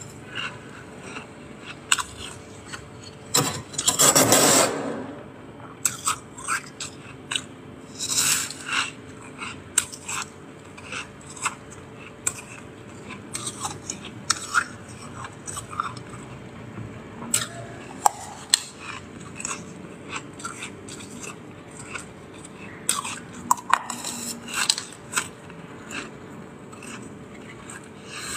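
Close-up crunching and chewing of freezer frost bitten off a metal spoon, with the spoon scraping through the frost on the freezer shelves. Many short crunches run throughout; a longer scraping sound about four seconds in is the loudest.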